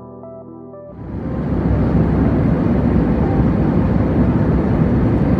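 Background music ends about a second in, and the steady rushing cabin noise of a jet airliner in flight swells up and holds, heard from a window seat.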